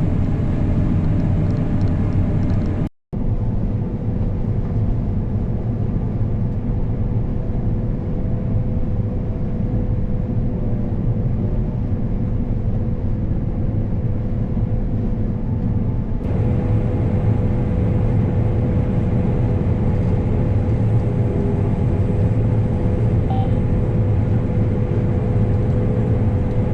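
Heavy farm machinery running at harvest: a steady, loud engine and drivetrain rumble with a constant whine on top. It drops out for an instant about three seconds in.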